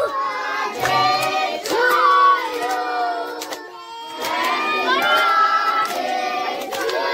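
A group of children singing a song together while clapping their hands in time.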